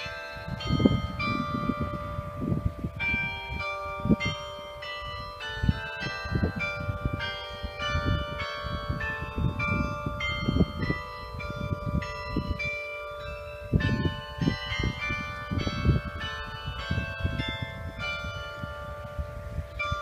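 Several church bells in the tower of Gludsted Church ringing together, strokes at different pitches following one another irregularly and overlapping in a sustained ringing. Low rumbling buffets hit the microphone repeatedly throughout and make the loudest peaks.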